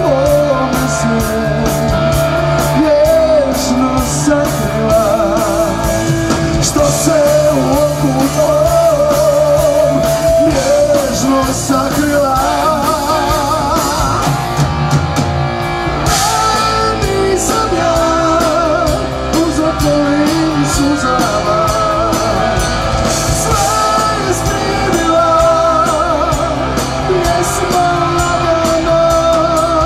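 Live rock band playing loudly: electric guitars, bass guitar and drum kit, with a voice singing over them.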